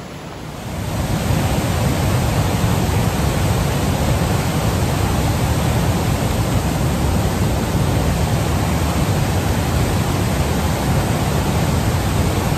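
Cascade Falls rushing over boulders: a steady, loud roar of whitewater that swells up about a second in and then holds even.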